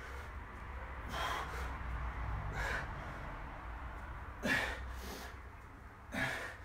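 A man breathing hard through a set of press-ups: a short, forceful exhale every second or so, about five in all, the strongest about halfway through.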